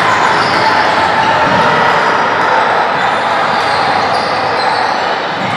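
Steady, echoing noise of an indoor basketball game in a gym, with a basketball bouncing on the hardwood court.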